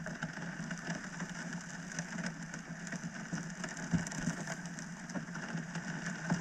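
A steady low hum with faint irregular ticks and a soft thump about four seconds in.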